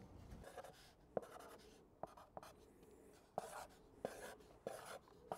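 Permanent marker writing on a cardboard box: a faint series of short strokes with a few sharp ticks.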